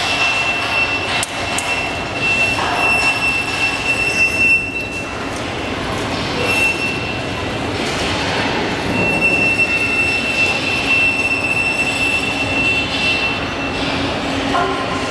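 Galvanizing plant machinery running with a steady rumble and a thin, high-pitched metallic squeal that stops and starts several times, dropping out about four and a half seconds in and again around eight seconds.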